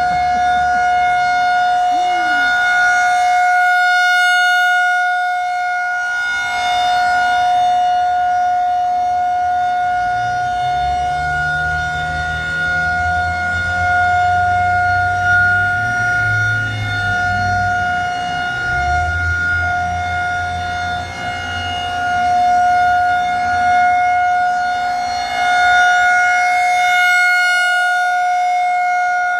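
Tornado warning siren sounding a steady single-pitch wail with strong overtones, its loudness slowly swelling and fading. A low rumble runs underneath for several seconds in the middle.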